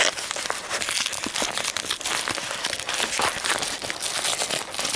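Yellow padded envelope rustling and crinkling in the hands as its contents are pulled out, a dense, continuous run of small crackles.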